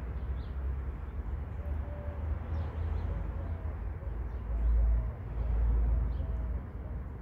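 Pigeons cooing softly over a steady low outdoor rumble that swells twice, loudest just past the middle.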